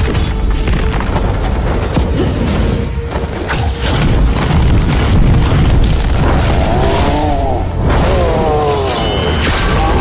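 Dramatic action film score with heavy booms and impact effects, and two swooping sound effects a little past two-thirds through.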